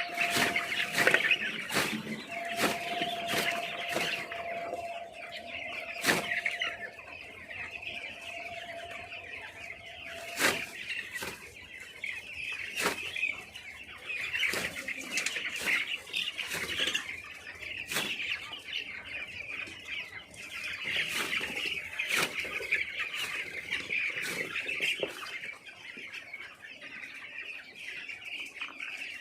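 A large flock of poultry chicks peeping together in a continuous high chatter, with scattered sharp clicks and knocks. A thin steady tone runs underneath and stops about ten seconds in.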